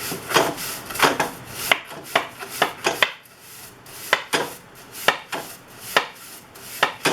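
Stiff-bristled concrete brush sweeping sanding dust off a glued-up ring of wooden segments, in quick scratchy strokes about two a second, with a short pause in the middle.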